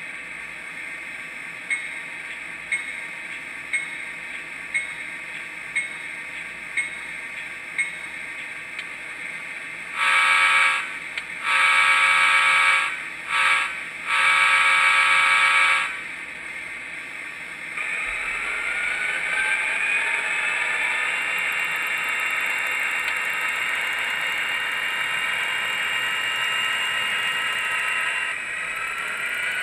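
Digitrax sound decoder in an HO-scale Athearn SD40-2 model diesel, playing its diesel sound project: over the idling prime mover the bell dings slowly about once a second, seven times, at a ring rate slow enough that the owner wants it faster. Then the horn sounds four blasts, long, long, short, long, the grade-crossing signal. After that the prime mover revs up, its pitch rising for several seconds.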